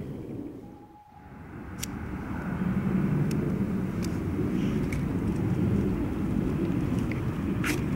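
Steady low outdoor rumble that dips briefly about a second in, with a few sharp clicks and taps of small metal camping kit being handled.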